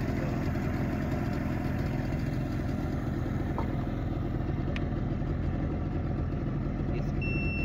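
Boat engine running steadily at idle, a low even hum. A short high electronic beep comes in just before the end.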